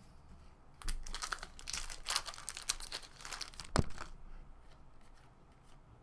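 Plastic wrapper of a baseball card pack being crinkled and torn open, a run of crackling rustles for about three seconds with one sharp snap near the end.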